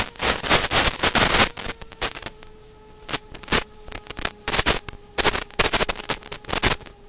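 Loud, irregular crackling static from an analog FPV video receiver as the link from a TinyHawk 3 micro drone breaks up, over a steady faint electronic whine. The crackle comes in clusters, heaviest in the first second and a half and again near the end: the sign of a weak or interrupted video signal.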